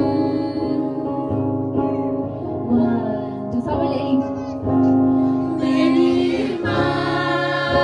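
A song playing, a woman singing over instrumental backing with a steady beat.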